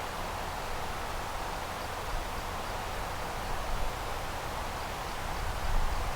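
Steady rushing hiss of distant jet aircraft noise, with wind rumbling on the microphone in gusts near the end.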